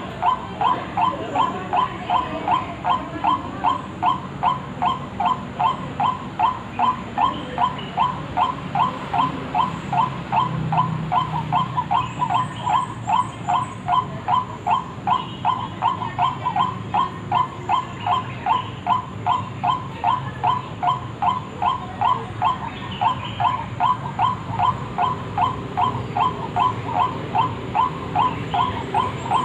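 White-breasted waterhen (ruak-ruak) call used as a lure: one short note repeated steadily about twice a second without a break.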